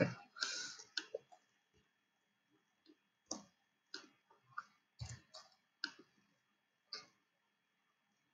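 Faint computer mouse clicks, about ten short clicks at uneven intervals, bunched between about three and seven seconds in.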